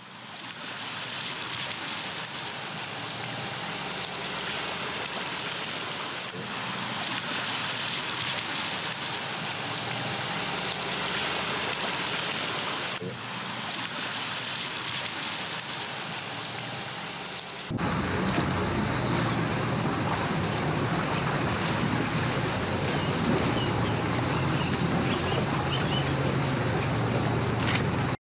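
Range Rover L405 driving through muddy water on a woodland track and a flooded lane: a steady rush of water, with brief breaks where the footage cuts. A little past halfway it turns louder, with a deeper rumble under the rush.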